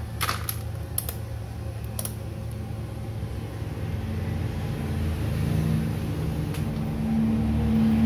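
A steady low mechanical hum with a few sharp clicks in the first two seconds and one more about six and a half seconds in. A second low hum sets in and grows louder near the end.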